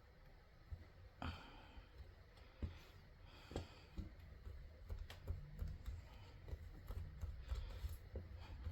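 Scattered light clicks and taps of polymer clay pieces and tools being handled on a desk, over a faint low hum.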